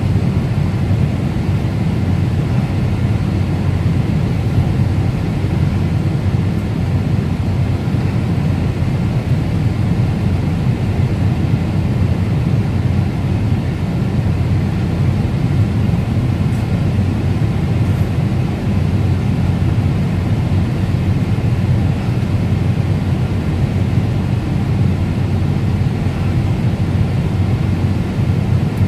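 Steady cabin noise of a Boeing 747-8i airliner in cruise at about 36,000 ft: an even, low rush of engines and airflow heard from a passenger seat inside the cabin.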